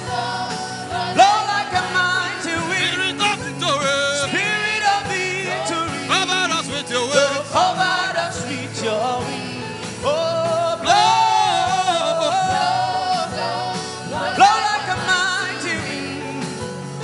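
Gospel worship music: voices singing a slow, flowing melody over steady sustained backing chords.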